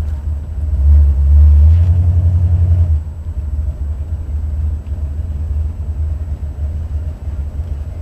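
Low rumble of a Buick 455 V8 and the car underway, heard from inside the cabin. It swells louder for about two seconds, starting about a second in, then settles back to a steady rumble.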